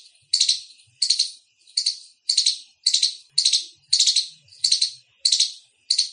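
Indian palm squirrel calling loudly, a sharp trilled chirp repeated over and over at about one and a half calls a second.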